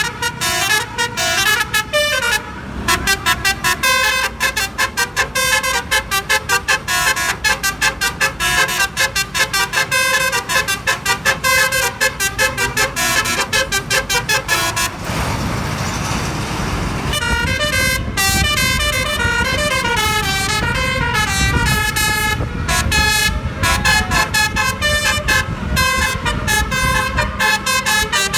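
Basuri-style melodic vehicle horn, driven by a DAV air horn tone module, playing a fast tune of short staccato notes that step up and down in pitch. It breaks off for about two seconds past the middle, leaving only road and engine noise, then plays on.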